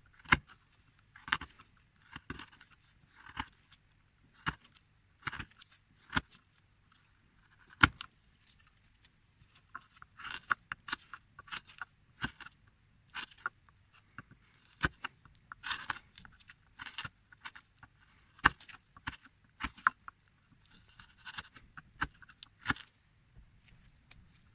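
Hand-carving a small figure: a blade scraping and cutting in short, irregular strokes, with a few sharp clicks among them.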